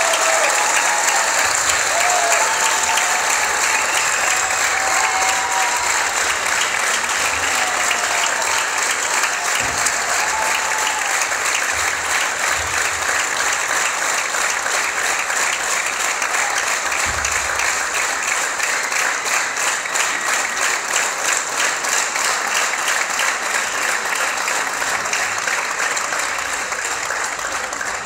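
Large theatre audience applauding loudly. In the second half the clapping falls into a steady rhythm in unison.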